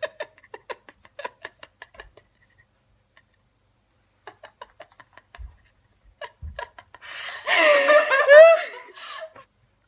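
Two young women laughing: runs of short, quick giggles in two bouts, then a louder stretch of laughter about seven seconds in.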